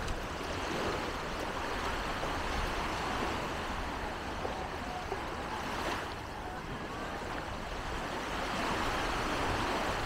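Beach ambience: a steady wash of noise, like surf and wind, with faint voices of people in the distance.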